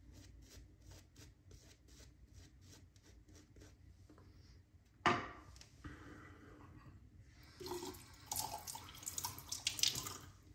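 Chisel and Hound shaving brush swishing lather over the face in quick, faint strokes, about four a second. A single knock comes about five seconds in, and a tap runs at the sink near the end.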